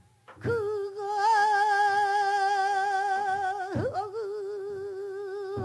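Pansori singing: a woman's voice holds one long note with wide vibrato. A little past halfway it breaks with a quick downward slide, then takes up the held note again.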